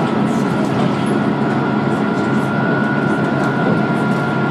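Dennis Trident II double-decker bus running under way, heard from on board: steady engine and road noise with a thin, high, steady turbo whine over it.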